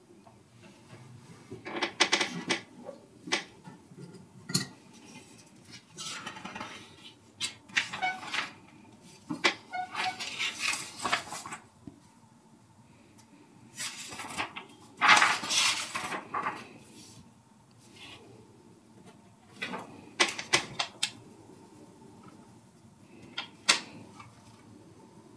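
Irregular clattering and tapping of hard objects being handled, in uneven bursts with short quiet gaps between them.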